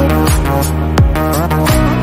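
Background music with a steady beat: a deep kick-drum thump about every 0.7 seconds under pitched instrumental notes.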